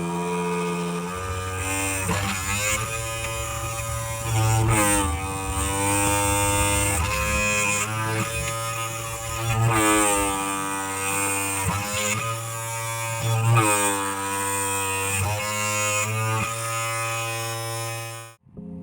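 A small electric motor whirring, its pitch sweeping up several times as it spins up again.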